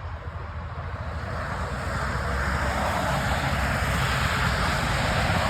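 Highway traffic: a vehicle's engine rumble and tyre hiss growing louder over the first few seconds as it approaches, then holding steady.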